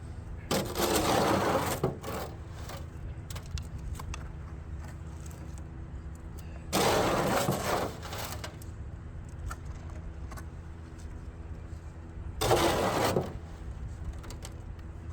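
Three rough scraping sounds, each about a second long and about six seconds apart, from a tool working wet concrete slurry. A steady low engine hum runs underneath.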